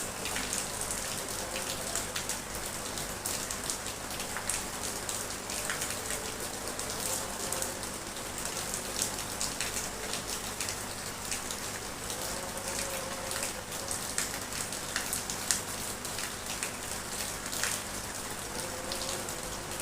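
Drizzle falling steadily, a soft even patter of rain with many small drops ticking on surfaces.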